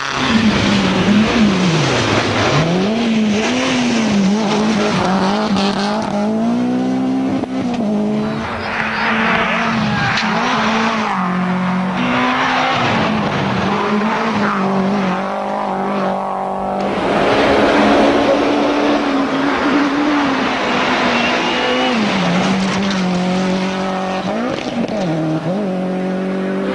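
Toyota Celica GT4 ST165's turbocharged two-litre four-cylinder engine being driven, its revs rising and falling again and again and holding steady in between, over a steady haze of road noise.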